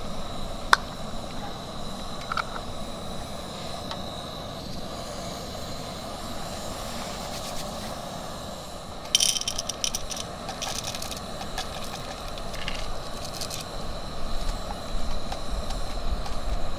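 Crinkling and rustling of a small wrapper or packet being handled, in a cluster from about nine to thirteen seconds in, over a steady rushing background, with a sharp click about a second in.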